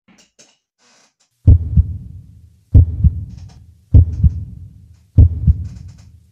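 Heartbeat sound effect: four deep double thumps (lub-dub), about one and a quarter seconds apart, starting about a second and a half in.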